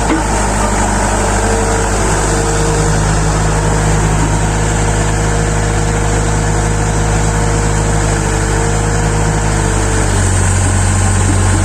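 Excavator engine running steadily, its note changing about ten seconds in.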